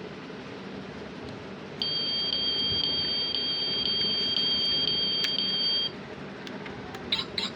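Steady, high-pitched electronic beep tone held for about four seconds, then a few short clicks near the end.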